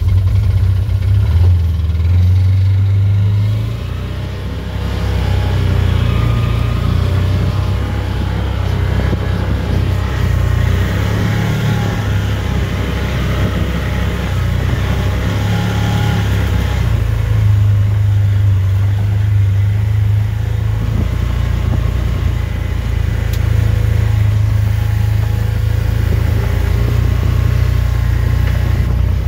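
Off-road vehicle's engine running as it drives along a dirt trail: a steady low drone that eases off briefly about four seconds in, then carries on with small rises and falls in throttle.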